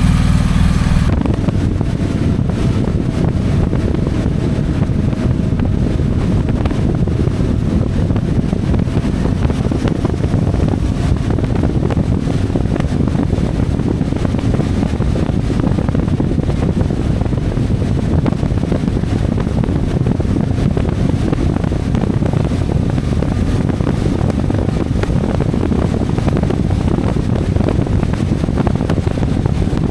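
CFMoto 450MT motorcycle under way: a steady rush of wind buffeting the microphone over the running engine, starting about a second in.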